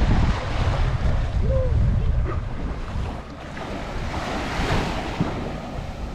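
Sea surf washing onto the beach, with wind buffeting the microphone in a heavy low rumble.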